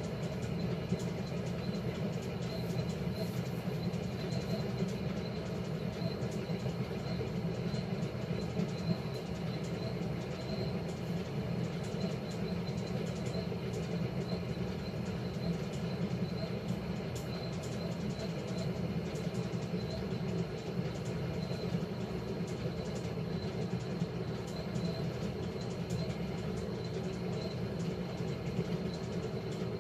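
1957 Blackstone 350 automatic washer spinning its stainless-steel tub, the motor and transmission running with a steady mechanical hum.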